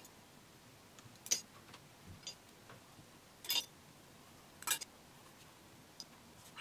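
Paintbrush clicking and tapping against the glass water jar and the watercolour paint palette: three sharp clicks a second or more apart, with fainter ticks between.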